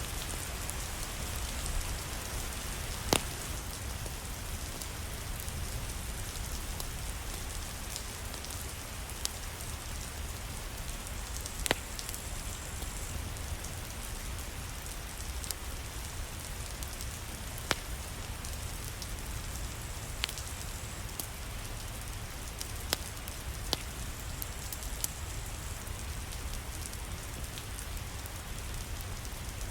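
Steady rain, with a few sharp pops or cracks scattered through it, the loudest about three seconds in and again near twelve seconds.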